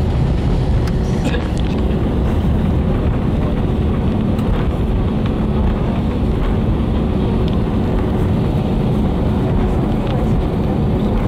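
Airbus A320 cabin noise heard by the wing during the landing on the runway: a loud, steady rumble of engines, airflow and wheels, with a few faint steady hums underneath.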